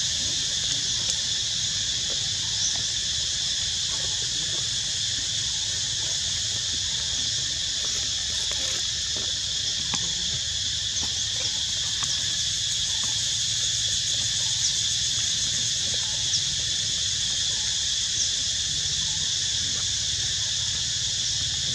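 Steady outdoor insect chorus: a continuous high buzzing drone with a few faint short chirps over it and a low rumble beneath.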